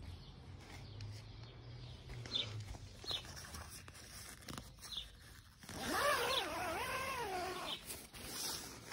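MSR Hubba NX1 tent door zip pulled open along its curved track: a pitched zipping sound about two seconds long, about halfway through, whose pitch wavers up and down as the pull speeds and slows. Faint short bird chirps come here and there.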